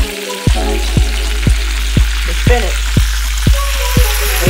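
Turkey sausage, onions and spinach sizzling in hot vegetable oil in a frying pan, with background music that has a steady beat of about two strokes a second; the bass comes in about half a second in.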